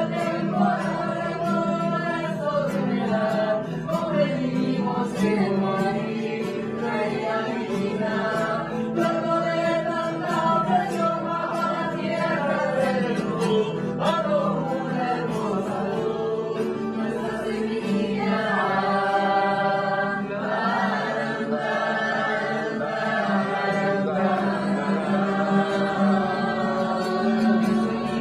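Live music: voices singing a slow, chant-like melody over a steady low drone, with a light ticking beat. About two-thirds of the way through, one note is held long.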